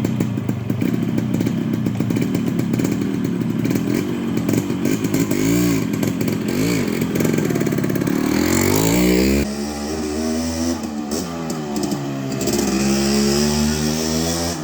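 Yamaha RX100's two-stroke single-cylinder engine running and being revved, its pitch rising and falling with repeated throttle blips and climbing higher about eight seconds in.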